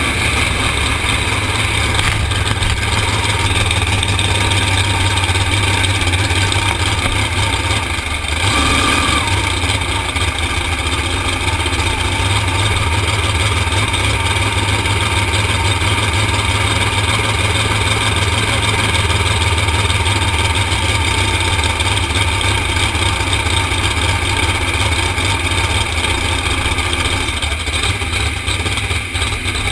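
A flat-bottom drag boat's engine running loud and steady, with a brief dip about eight seconds in.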